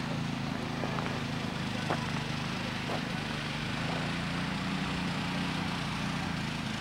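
Small engine running steadily at a low hum, with light ticks about once a second.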